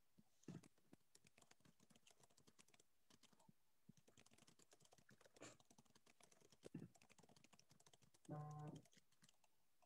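Faint typing on a computer keyboard: quick, irregular key clicks with a few louder taps, and a brief low hum near the end.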